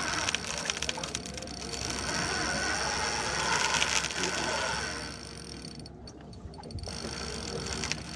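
Fishing reel clicking and whirring under load while a hooked fish is fought; a larger fish has grabbed the hooked one. The clicking eases off for a moment around six seconds in.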